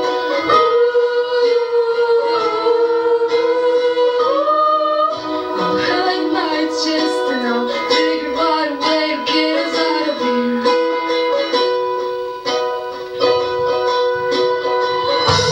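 A singer holding and bending long sung notes over plucked ukulele accompaniment.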